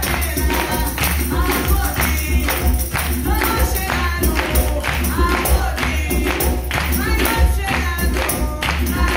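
Live flamenco-style percussion: a fast, steady rhythm of hand-clapping (palmas) with a tambourine and a hand drum, and a voice singing over it.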